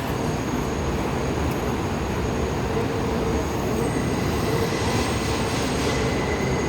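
New York City subway train running along the track, a steady rumble and rush of wheel noise with a faint high thin whine over it.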